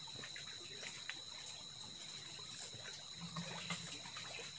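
Faint open-water ambience: light water lapping and trickling with a few small clicks, over a steady high-pitched whine.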